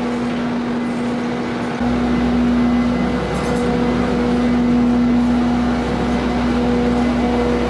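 Bobcat skid-steer loader's diesel engine running steadily under load, with a deeper low rumble coming in suddenly about two seconds in.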